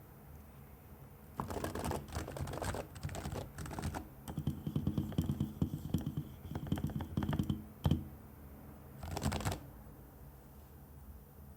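Realforce R2 Topre keyboard, fitted with silencing rings and PBT keycaps, being typed on in bursts: a loose run of keystrokes, then a fast dense run of typing, one louder keystroke just before the 8-second mark, another short burst, then the typing stops.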